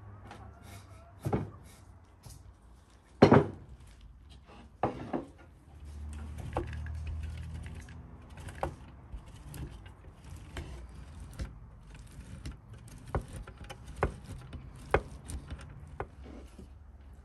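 A few knocks of things being handled on a wooden table, the loudest about three seconds in. Then cheese is grated on a metal box grater into a wooden bowl, with irregular sharp clicks about once a second.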